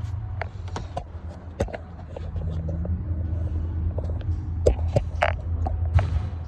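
A steady low mechanical rumble with scattered sharp clicks and knocks, as a serpentine belt is worked by hand around the engine pulleys. The rumble grows a little louder about a second and a half in.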